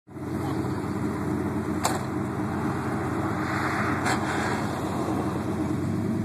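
A vehicle engine running steadily, with two short sharp clicks about two seconds apart.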